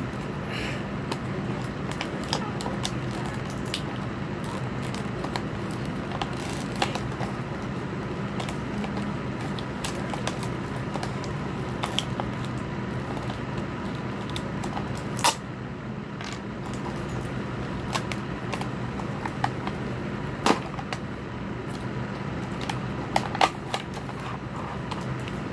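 Plastic and cardboard packaging of a pair of Bluetooth earbuds being handled and opened by hand: irregular crinkling and crackling with scattered sharper snaps, over a steady low hum.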